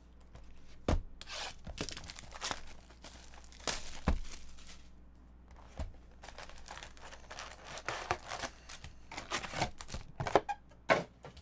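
Plastic wrap being torn off a sealed trading-card box, crackling and crinkling, with a few light knocks on the cardboard. In the second half the wrapped card packs crinkle and tap as they are lifted out of the box and laid down.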